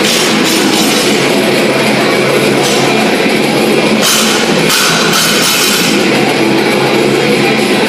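Loud heavy rock music with distorted electric guitar and a drum kit, cymbal crashes about two and a half seconds in and again around four to five seconds in.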